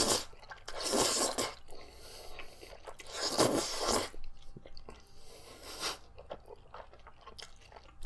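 A person loudly slurping jjajangmyeon noodles in a mukbang: several long slurps, with quieter chewing between them and near the end.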